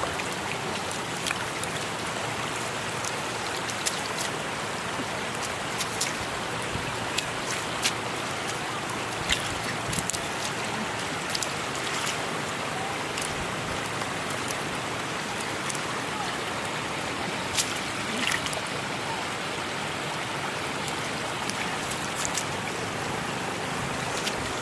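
Shallow floodwater running over a road, a steady rushing of water, with scattered short splashes as hands slap into the water to grab catfish.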